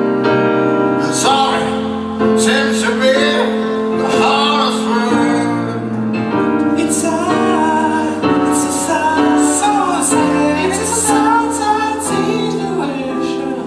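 Piano accompaniment with a voice singing over it in long, wavering held notes.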